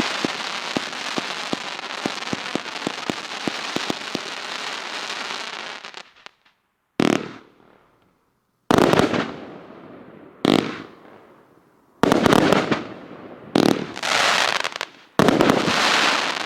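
'Ignition' 146-shot firework cake by Outstanding Fireworks firing: dense crackling for about six seconds that dies away, then after a short gap a string of about seven separate loud bangs, each fading away before the next.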